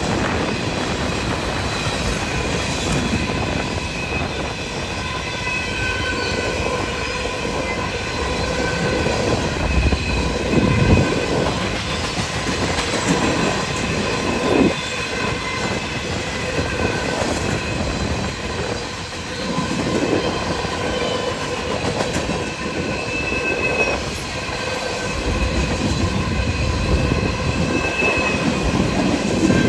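BNSF freight train cars rolling past. The wheels squeal and ring steadily over a continuous rumble of the cars on the rails, with a few louder knocks and clacks from the wheels and couplers.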